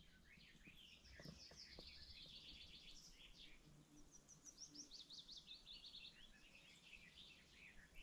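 Faint songbirds singing: scattered high chirps and two rapid trilled phrases, the second starting about halfway through.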